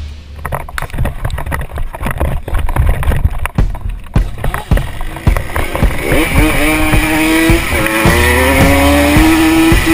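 Hercules GT racing moped's 50 cc two-stroke engine heard from the rider's helmet: a run of sharp knocks and clatter, then from about six seconds in the engine pulls up with a rising tone and runs on at high revs.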